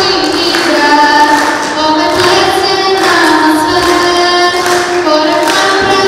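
Child voices singing a melody, holding notes for long stretches without a break.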